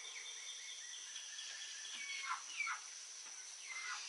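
Small birds chirping: a few short calls that fall in pitch, over a steady faint high-pitched tone.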